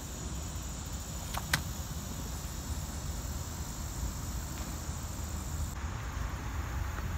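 Steady high-pitched trilling of insects over a low rumble of wind on the microphone, with two sharp clicks about a second and a half in. Near the end the trilling stops abruptly and a hiss of wind and rustling leaves takes over.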